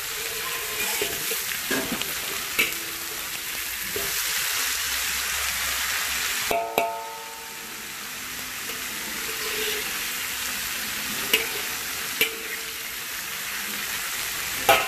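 Sliced onions, chilies and curry leaves sizzling as they fry in an aluminium wok, stirred with a metal ladle that now and then clicks against the pan. About halfway through the sizzle briefly drops, then builds back up.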